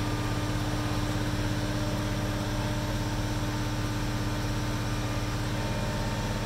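Mobile crane's diesel engine running steadily at a constant pitch, a low even drone with a steady hum above it.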